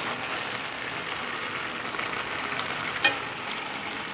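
Saag sizzling in a metal pot as a metal spoon stirs it, its water cooked off. One sharp clink of the spoon on the pot about three seconds in.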